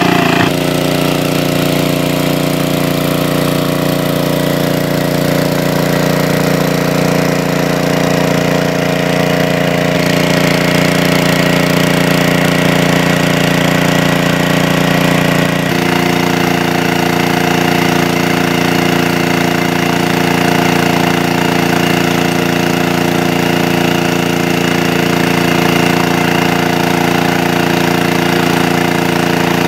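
Engine of a large-capacity water pump running steadily. Its tone shifts abruptly about half a second, ten seconds and sixteen seconds in.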